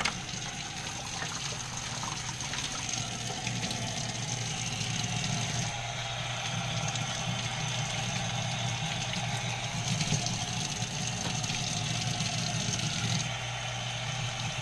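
Tap water running and splashing into a utility sink while canister filter sponges are handled under it, over a steady low hum.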